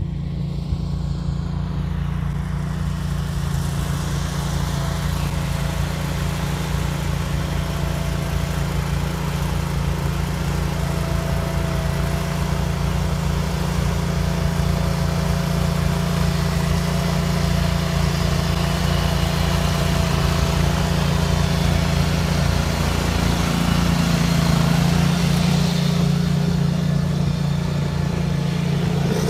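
Cub Cadet garden tractor engine running steadily, driving its tractor-mounted snow thrower as it throws snow, with an even hiss over the engine note. The sound grows a little louder a few seconds before the end.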